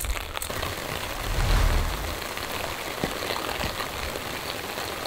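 Steady rain falling, an even hiss with a few faint ticks of drops. A low rumble swells and fades about a second in.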